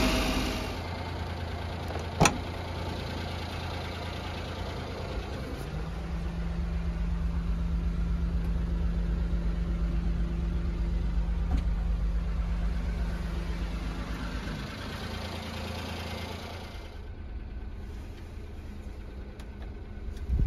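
The 1994 Daihatsu Hijet truck's 660 cc three-cylinder engine idling steadily, with one sharp click about two seconds in.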